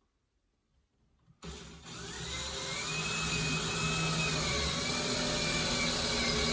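Power drill with a 1/8-inch bit boring a pilot hole into a wooden wall stud. It starts about a second and a half in, its motor whine rising as it spins up and then running steadily under load.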